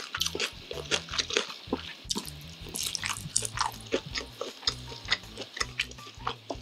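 Close-miked chewing of a piece of sweet marinated grilled pork rib: a dense run of wet, irregular mouth clicks and smacks.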